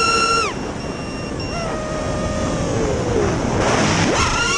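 FPV quadcopter's brushless motors (T-Motor F60 III 2750kv spinning 5-inch props): the high steady whine drops sharply about half a second in as the throttle is cut at the top of a power loop, then slides lower in pitch as the quad falls, a rush of air noise follows, and just after four seconds the whine rises sharply again as the throttle is punched to pull out of the dive.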